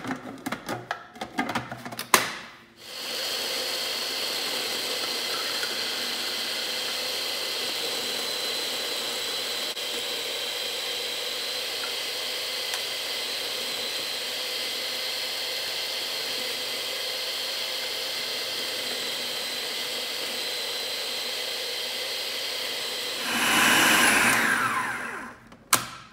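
Electric food processor chopping red chilli peppers, onions and garlic. First a few plastic clicks as the lid is fitted, then the motor runs steadily for about twenty seconds. Near the end it gets louder for a moment and winds down with a falling whine, and a couple of clicks follow.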